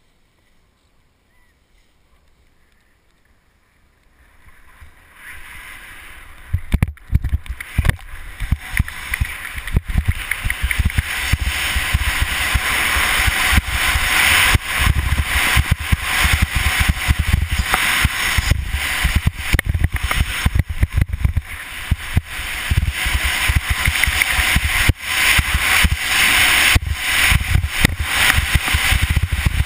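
Skis scraping and carving over hard-packed snow, with wind rushing over a helmet-mounted camera. It starts quiet, builds over a few seconds, then becomes a loud, continuous rush broken by many sharp scrapes.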